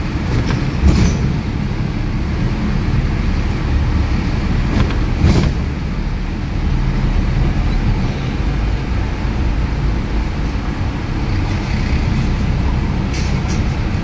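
Songthaew pickup driving along a town street, heard from inside the cab: a steady engine and road rumble, with a couple of short knocks, about a second in and again about five seconds in.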